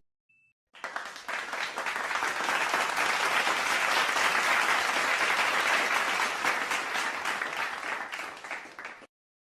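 Crowd applauding: clapping starts about a second in, builds to a steady full round of applause, then thins and fades out near the end.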